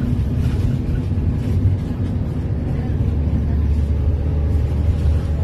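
Steady low rumble of a running road vehicle.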